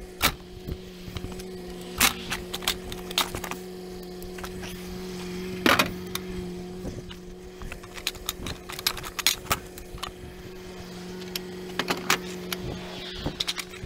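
A diesel tow truck idling with a steady low hum while wheel dollies are taken off a towed car and stowed on the truck: a string of sharp metal clanks and clicks, the loudest about six seconds in.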